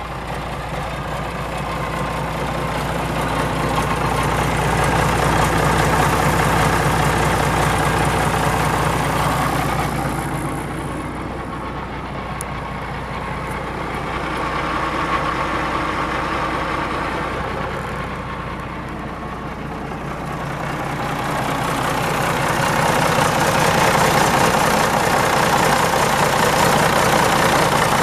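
Case 970 tractor's diesel engine running steadily at idle. The sound grows louder and fainter a couple of times as it is heard from different points around the tractor.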